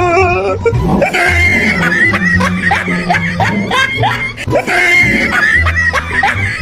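Music with a steady bass line under high, squeaky voices laughing and squealing in quick rising chirps, about three a second, in the manner of a cartoon soundtrack.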